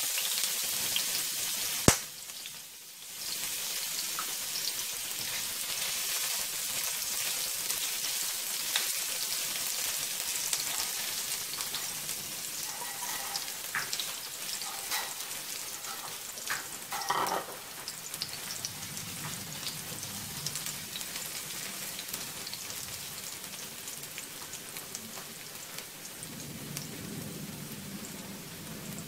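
Ginger and garlic strips sizzling in hot oil in a wok, a steady crackling hiss. A sharp knock about two seconds in, and a few stirring strokes of a silicone spatula against the pan near the middle.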